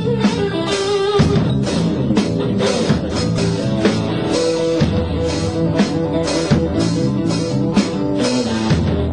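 Blues-rock instrumental: an electric guitar plays lead lines over a steady drum beat, with some notes held and wavering in vibrato.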